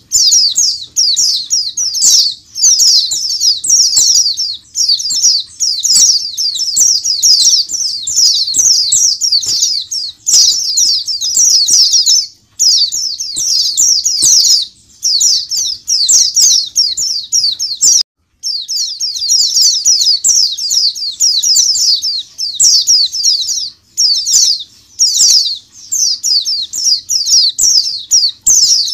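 A large flock of caged white-eyes (pleci) chirping and twittering together in a dense, high-pitched chorus, with short pauses and a brief drop-out about eighteen seconds in.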